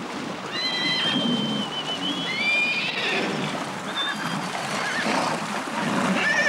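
Horses whinnying several times: high calls held for up to a second, the longest ones about half a second and two seconds in, over a splashing, watery noise.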